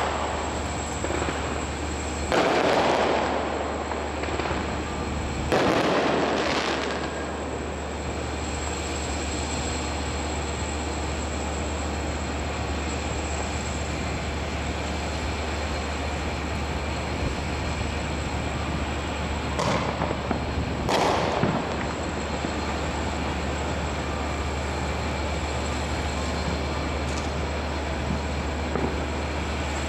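Fireworks going off: two loud bursts a few seconds in and two sharper bangs about twenty seconds in, over a steady low hum.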